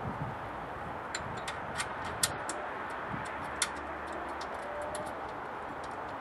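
Scattered light metallic clicks and taps at irregular intervals, the sharpest about two seconds in, as the steel running-board brackets and bolts are handled and lined up, over a steady background hiss.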